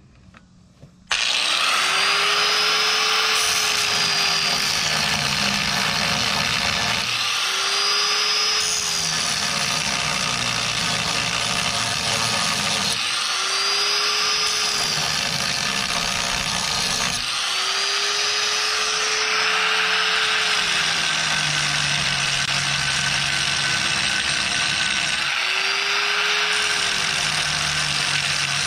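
An angle grinder grinds off an old repair weld on a steel brace. It starts about a second in and runs steadily, its whine swelling up and dropping back every few seconds.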